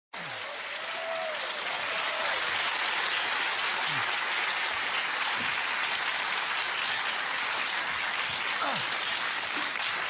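Studio audience applauding steadily, starting abruptly at the very start and holding without a break.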